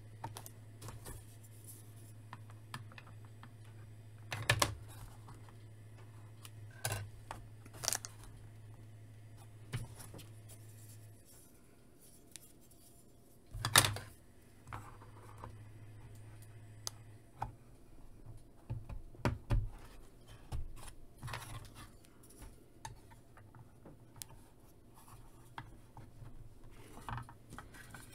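Hard plastic modular diorama pieces clicking, tapping and rattling as they are handled and pressed together on a tabletop, with sharper knocks about four and a half and fourteen seconds in.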